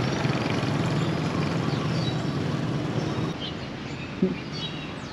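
Steady vehicle engine drone with street noise. It cuts off about three seconds in, giving way to quieter outdoor sound with birds chirping and a single short thump.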